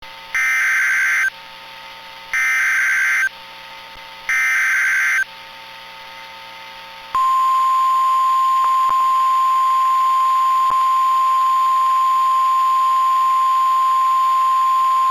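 NOAA Weather Radio emergency alert: three one-second bursts of harsh, buzzing SAME digital header data a second apart, then, about seven seconds in, the steady single-pitch 1050 Hz Warning Alarm Tone that marks a warning about to be read, here a tornado emergency. Faint radio hiss lies under it.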